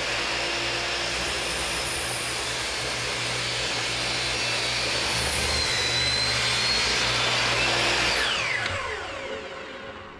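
Electric chop saw (miter saw) running and cutting down into a side-console leg. It is switched off about eight seconds in and winds down, its whine falling in pitch until it stops.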